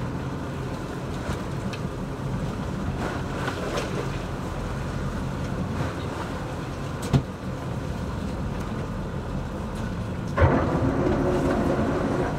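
A fishing boat's engine idling with a steady low hum. A sharp knock comes about seven seconds in, and a sudden louder rush of noise starts about ten seconds in and lasts a couple of seconds.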